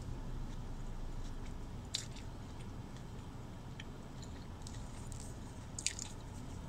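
A person chewing a mouthful of Big Mac, with soft wet mouth sounds and two sharper clicks, one about two seconds in and one near the end, over a steady low rumble.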